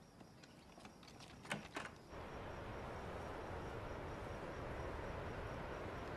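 A few light clicks and taps in the quiet, then, from about two seconds in, a steady even hiss of outdoor ambience from a film soundtrack.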